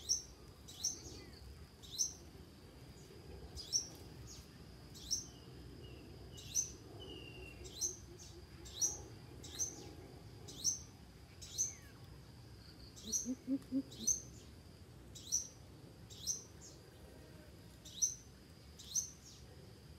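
Greater coucal giving a short run of about five deep hoots about two-thirds of the way in, with a fainter run of low hoots near the middle. A sharp high chirp repeats about once a second throughout and is the loudest sound.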